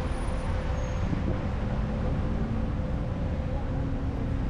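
Steady low rumble of motor traffic with a faint engine hum running through it, and some wind on the microphone.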